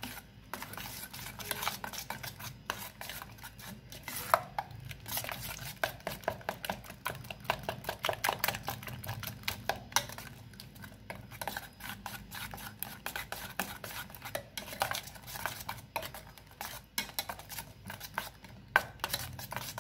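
A utensil beating a raw egg, onion and spice mixture in a stainless steel bowl, with quick, continuous clinking and scraping against the bowl's sides.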